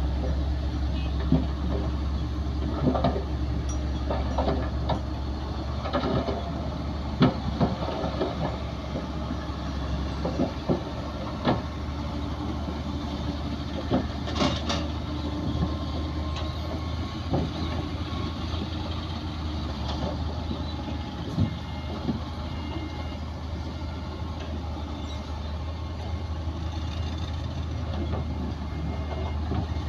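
Heavy diesel earthmoving machinery running steadily with a low drone, with irregular sharp metallic clanks and knocks, more of them in the first half.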